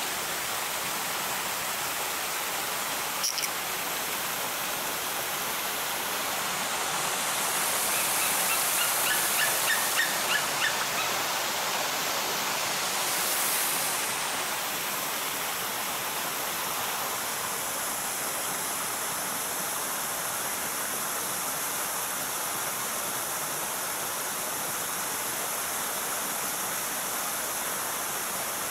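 Steady rushing noise, with a quick run of short, high chirping calls about eight to eleven seconds in, growing louder toward their end.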